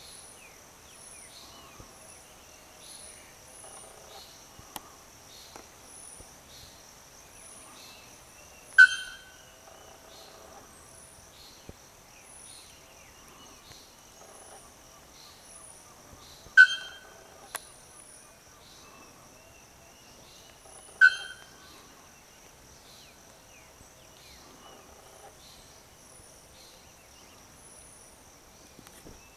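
Bare-throated bellbird giving three loud, single, abrupt metallic calls, several seconds apart. Under them run a steady high insect drone and faint high chirps repeating about once a second.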